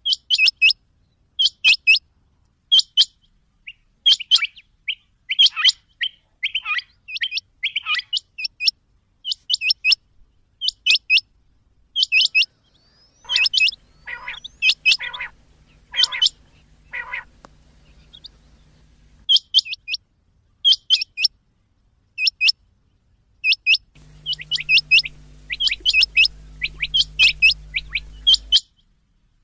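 Rain quail calling over and over: clusters of short, sharp, high double notes, several groups every couple of seconds with brief pauses. Around the middle comes a short run of lower, rougher notes. A low steady hum sounds underneath in the middle and again near the end.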